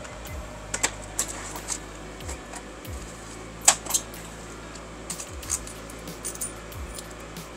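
Scattered light clinks and clatter of utensils and containers being handled in a food-truck kitchen, with a sharper clink a little past halfway, over a steady low hum.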